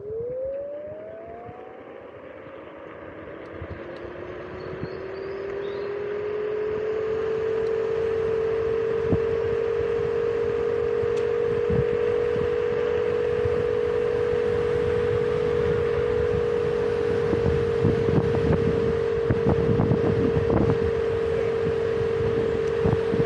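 Electric kick scooter hub motor whining as it speeds up, its pitch rising over the first several seconds and then holding steady at cruising speed. Underneath is a steady rush of wind and tyres on pavement, with a few knocks in the second half.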